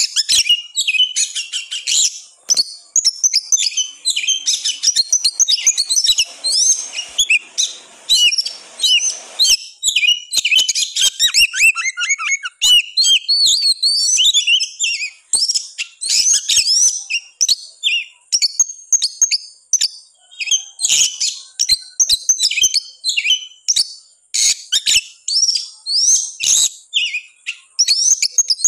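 Oriental magpie-robin (kacer) in full, insistent song: a fast, nearly unbroken stream of varied high chirps, trills and gliding whistles with only brief pauses. It is the agitated, persistent song of a fired-up male.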